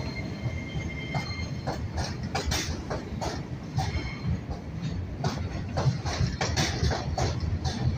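Vintage New York City Subway train passing through an elevated station at speed without stopping: steel wheels clacking over rail joints in a quick, irregular rhythm over a steady rumble. A faint, thin wheel squeal comes in briefly about a second in.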